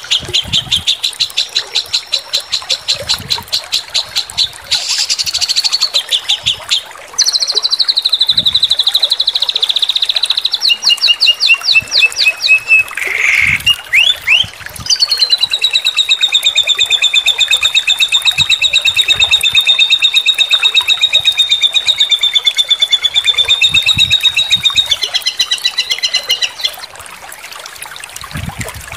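Songbird masteran recording, a tutor track of bird song phrases spliced one after another: quick repeated chattering notes, a falling trill, then a long, fast rattling trill that stops near the end.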